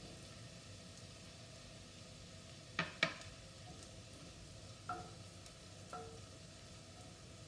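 Food frying gently in a pan on a low flame, with a faint steady sizzle, while a spoon or spatula stirs it. The utensil knocks sharply against the pan twice about three seconds in, then taps it twice more lightly, with a brief ring.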